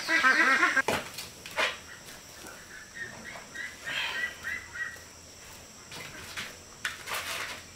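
Farm animal calls, loud and wavering, for about the first second. Then a few sharp knocks and a faint run of short, high chirping calls.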